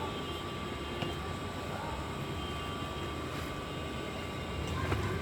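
A steady machine drone with a thin, even whine above it, and two light clicks, one about a second in and one near the end.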